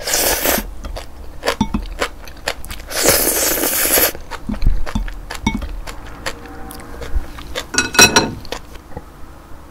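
A person slurping instant ramen noodles off wooden chopsticks, with two long slurps, one at the start and a louder one about three seconds in. Chewing and small clicks follow, with another short slurp about eight seconds in.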